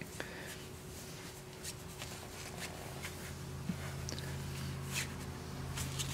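Faint scattered rustling and light scratching on a nylon cloth backdrop as a young corgi puppy shuffles about and a hand handles it, over a low steady hum.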